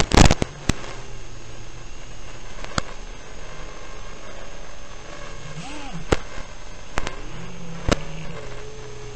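A 6-inch FPV quadcopter's motors running in flight, their hum rising and falling in pitch with the throttle, broken by several sharp crackling pops, the loudest cluster right at the start.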